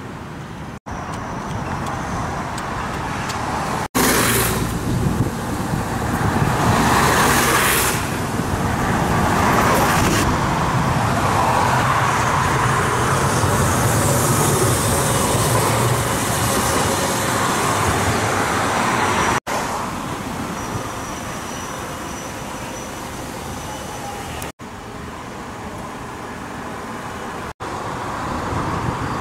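Street traffic on a city bridge: cars and a Hiroshima Electric Railway low-floor articulated tram passing close by. The loudest stretch runs from a few seconds in until about two-thirds through, and the sound is broken by several abrupt cuts.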